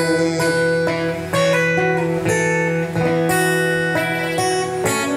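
Yamaha acoustic guitar played solo, capoed, with chords strummed about once a second and left to ring: the closing instrumental bars of the song.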